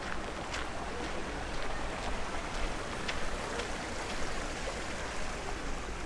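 Footsteps crunching on a path at a walking pace, about two a second, over a steady outdoor rushing background.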